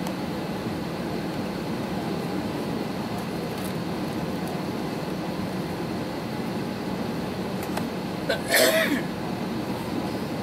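Steady hum of cabin noise inside an airliner waiting on the ground, with a passenger's short loud cough about eight and a half seconds in.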